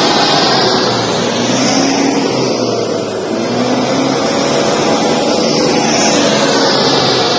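Toyota Land Cruiser LJ79's four-cylinder diesel engine running hard under load while the truck is winched out of deep mud, its pitch rising and falling slowly.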